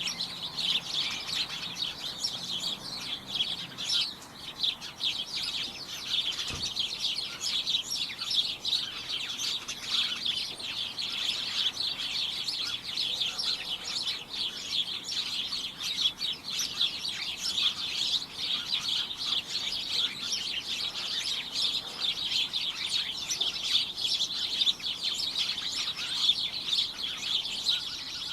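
A flock of small birds chirping together in a dense, continuous chatter of many overlapping short, high-pitched chirps.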